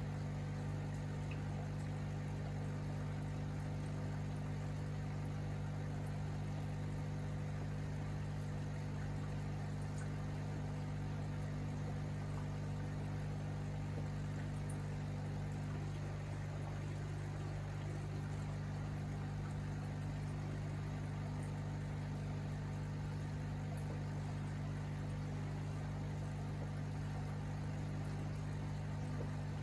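Aquarium air pump humming steadily, with air bubbles trickling up through the tank water.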